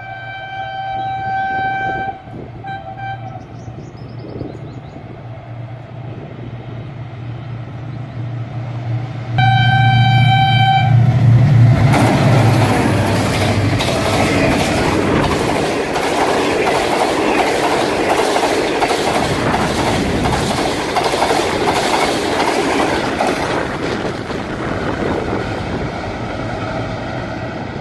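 Pakistan Railways Green Line express passing at speed. Its diesel locomotive sounds its horn in a long blast, a short one, then a louder long blast about ten seconds in as it passes, over the engine's running. The coaches' wheels then clatter over the rail joints, fading as the train draws away.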